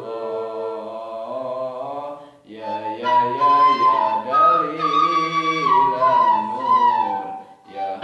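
Sholawat, an Islamic devotional song, sung with a suling bamboo flute playing the melody over a low steady drone. There is a short break about two and a half seconds in, and after it a higher flute line moves from note to note.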